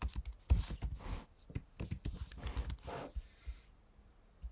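Computer keyboard typing: a quick, irregular run of key clicks that stops about three seconds in.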